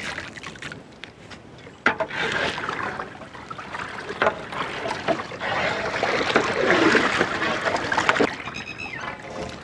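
Water sloshing and swishing in a large aluminium pot as a long ladle stirs it. The stirring starts about two seconds in and is marked by a few sharp knocks.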